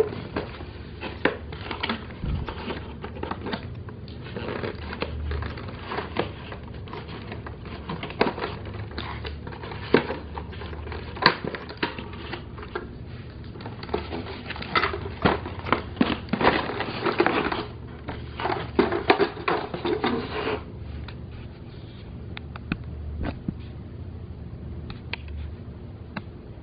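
Plastic toy pieces and packaging being handled: crinkling and rustling with many scattered clicks and knocks. The handling is busiest for about the first twenty seconds, then thins out.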